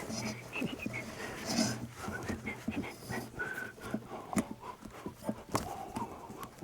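Dog panting, with a few short high whimpers, among scattered light clicks and knocks.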